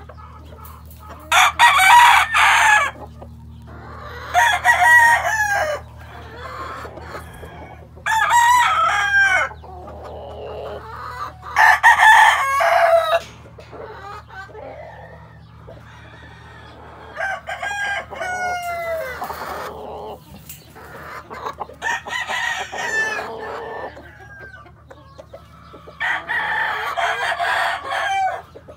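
Sweater-bloodline gamefowl roosters crowing in turn, about seven crows of one to three seconds each, from more than one bird, over a steady low hum.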